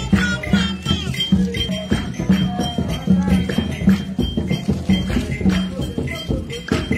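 Background music with a steady beat and busy percussion.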